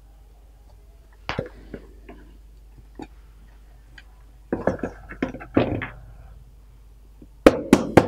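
Wooden chopping board and upturned metal cake tin knocking and clattering as the tin of sponge cake is turned out onto the board. Near the end, hands rap quickly on the tin's base, about four or five sharp knocks a second, to loosen the cake.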